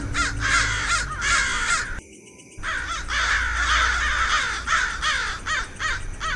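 A chorus of animal calls, many short notes repeating several times a second, each quickly rising then falling in pitch, over a steady low hum. The sound cuts out for about half a second roughly two seconds in.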